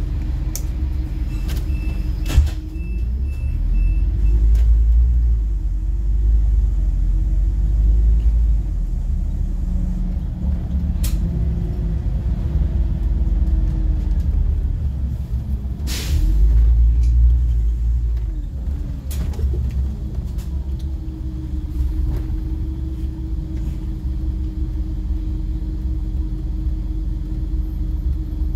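Scania CN270UB city bus heard from the driver's cab: the diesel engine pulls away and accelerates, its pitch rising and falling again and again as the automatic gearbox goes through the gears, over a steady low road rumble. Early on there is a sharp click and a short run of high beeps, and midway a brief hiss of air.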